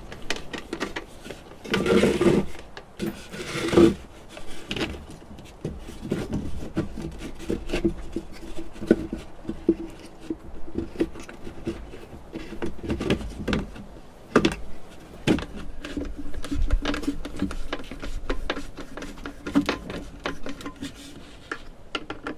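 Screws being driven by hand to fix a bamboo piece to a gourd body: irregular clicks, knocks and scraping of wood and gourd, with two longer scraping bursts near the start.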